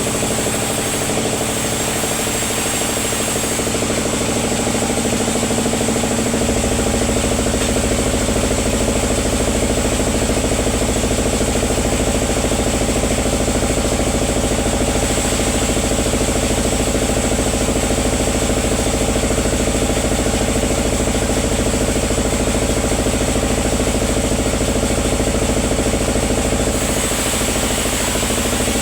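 Engine-driven sawmill machinery running steadily with an even mechanical hum. Its deep low rumble grows louder about six seconds in and eases back near the end.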